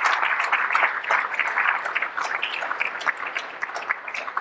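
Audience applauding: dense clapping that thins out and gets quieter toward the end.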